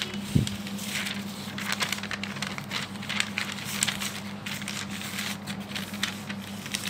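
A sheet of paper rustling and sliding on a table as it is turned under a pen, with the pen's tip scratching as it draws a circle, in irregular crackly strokes. A steady low hum runs underneath.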